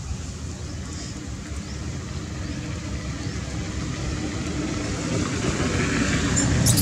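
A motor vehicle's engine runs as a low, steady hum that grows steadily louder, with a short sharp click near the end.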